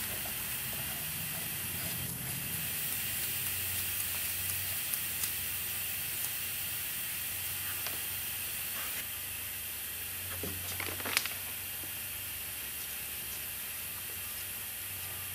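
Steady workshop hiss with a low hum underneath, broken by a few faint clicks and rustles as caps are fitted onto the hydraulic pump's ports. The most distinct click comes about eleven seconds in.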